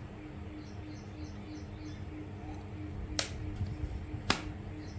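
Two sharp clicks about a second apart, past the middle, over small birds chirping in short repeated notes and a faint pulsing hum.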